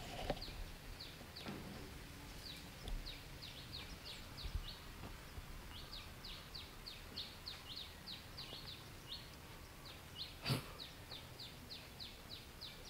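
A bird calling in a long run of short, high, falling chirps, about three a second, with a sharp click about ten seconds in.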